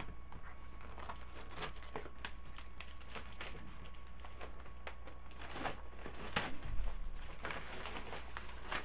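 Clear plastic shrink wrap crinkling and crackling in irregular bursts as it is pulled off a foam parts tray, with a dull bump about seven seconds in.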